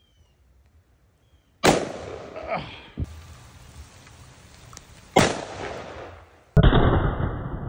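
Smith & Wesson 500 Magnum revolver firing 400-grain hard-cast .500 S&W Magnum rounds: three very loud shots, about a second and a half in, in the middle, and again just over a second later. The last shot is followed by a long tail of noise.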